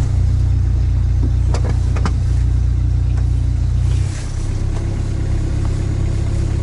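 Diesel engine of a Sherp all-terrain vehicle running under load, heard from inside the cabin as a steady low drone. About four seconds in, its level dips and its note changes as the engine eases off. Two short knocks come about half a second apart, around a second and a half in.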